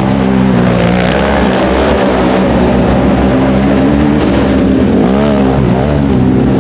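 Side-by-side UTV race engine running hard at high throttle, its pitch rising and dipping several times in the last couple of seconds as the throttle comes on and off.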